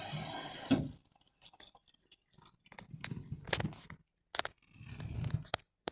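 Indesit washing machine starting up: water filling in with a steady hiss that cuts off with a click about a second in, followed by quiet intermittent crackling rustles and soft low thuds.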